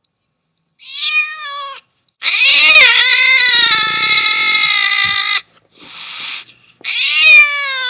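French bulldog puppy snoring in high-pitched, whine-like squeals: a short one about a second in, a long one lasting about three seconds, a breathy rasp, then another squeal falling in pitch near the end.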